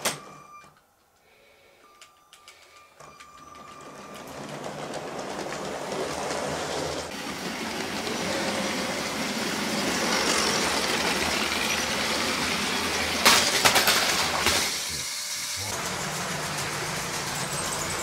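Motorised Lego train running on plastic track, its motor whir and wheel clatter growing louder from a few seconds in and then holding steady. A sharp knock comes right at the start, and a short burst of loud clattering about thirteen seconds in.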